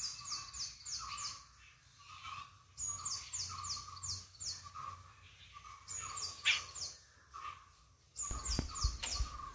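Birds calling. One bird repeats quick runs of four to six high notes that sweep downward, a run every few seconds, while another keeps repeating a short lower note. A couple of dull low thumps come near the end.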